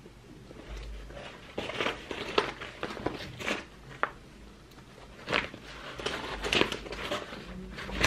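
Black nylon tactical bag being handled close up: irregular rustling and brushing of the fabric and strap, with a few sharp clicks.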